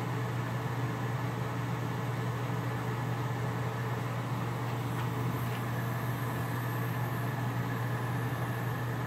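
Gas torch flame burning with a steady hiss while it heats a brass rod joint for soldering.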